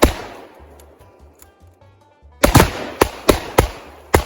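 Gunshots fired at a Tannerite target: one sharp shot at the start, then after a lull of about two seconds a rapid string of about six shots a few tenths of a second apart, with faint background music underneath.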